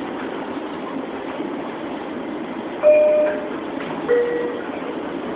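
Long Island Rail Road train running at speed, heard inside the car as a steady rail rumble. About three seconds in, two short ringing tones sound a second apart, the second lower than the first, like an onboard chime.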